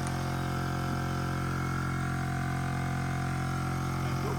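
OPENROAD 12V portable air compressor running steadily as it inflates a 35-inch tyre, a constant hum that holds the same pitch.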